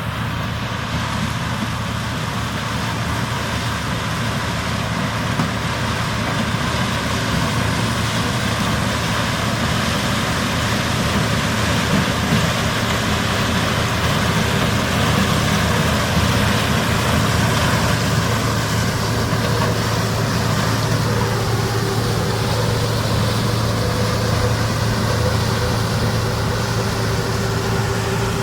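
Harvest machinery running steadily: the engine and threshing works of a Laverda M 152 combine harvester, with John Deere tractors, slowly growing a little louder. A steady whine joins in about two-thirds of the way through.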